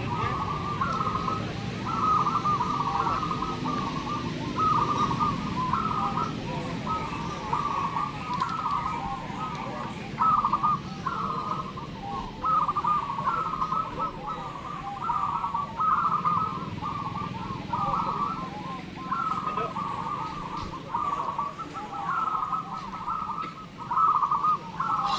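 Several zebra doves (perkutut) cooing, their phrases repeating and overlapping almost without pause.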